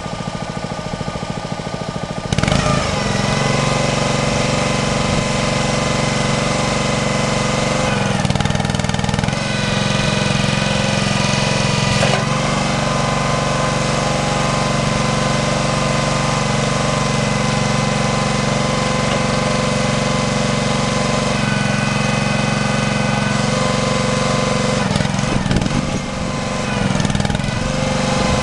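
Huskee 27-ton log splitter's small gas engine running steadily, driving the hydraulic pump while the log lift is worked. It grows louder about two seconds in and dips briefly a couple of seconds before the end.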